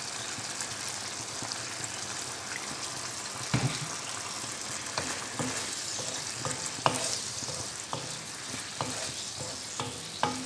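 Chicken gizzards sizzling in a nonstick pan with freshly added soy sauce, a steady frying hiss. From about three and a half seconds in, a wooden spatula stirs them, with scattered knocks and scrapes against the pan.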